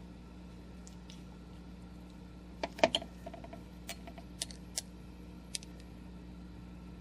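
Handling clicks from a dropper-capped ink bottle being opened: a sharp cluster of clicks about three seconds in as the dropper cap comes off the bottle, then a few lighter ticks as the dropper is handled. A low steady hum runs underneath.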